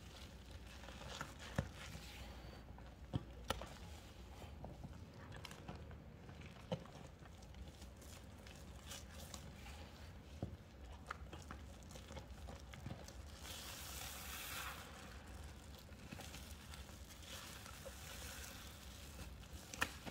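Faint wet squishing of baking-soda and cleaner paste being squeezed and worked by hand, with scattered sharp crackles and clicks, and a longer hissing squelch a little past halfway.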